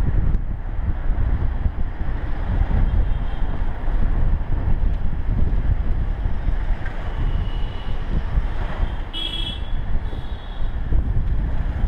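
Wind buffeting the microphone at an open vehicle window, over the rumble of the moving vehicle on the road. A short vehicle horn toot sounds about nine seconds in, with a fainter toot just before.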